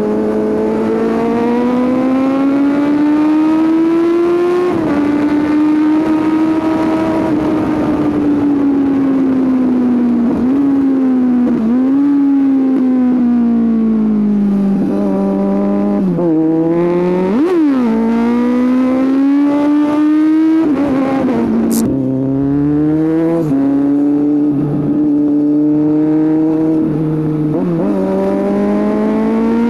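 Kawasaki Z800's inline-four engine through a Scorpion aftermarket exhaust, ridden on the road. The engine note climbs under throttle, drops at each gear change, sags slowly while rolling off, and gives a quick sharp rev blip about halfway through before pulling up through the gears again.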